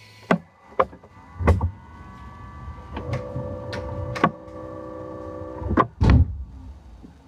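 Jaguar XK8 failing to start: a series of sharp clicks and knocks, about eight, with a steady buzzing tone for a few seconds in the middle and no sound of the engine cranking or running.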